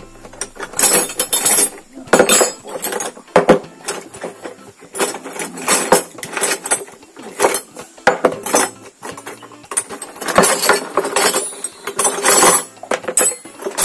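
Metal parts and tools clinking and clattering against an engine cylinder head as rocker-arm parts and bolts are fitted, in irregular bursts of sharp clicks.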